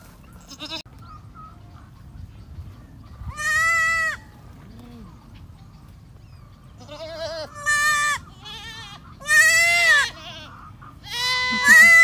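Goats bleating: several long, wavering bleats, one about three seconds in and the rest coming closer together in the second half, the loudest near the end.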